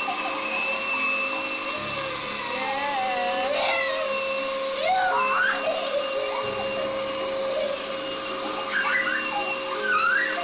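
Vacuum cleaner running steadily with a high whine, with short high-pitched squeals now and then over it.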